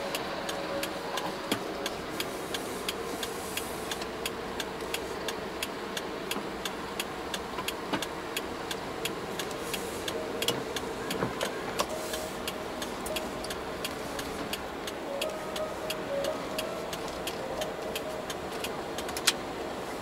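Car cabin noise while driving slowly, with the indicator relay ticking steadily at about two and a half ticks a second, and one sharper click near the end.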